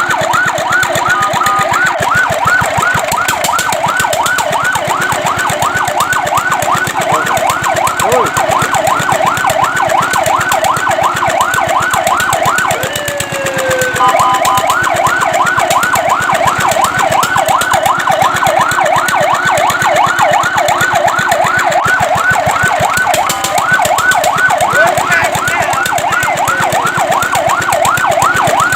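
Fire truck siren in fast yelp mode, sweeping up and down about four times a second. About halfway through, the yelp breaks off for a falling tone and a short steady tone, then resumes; a second short break comes later.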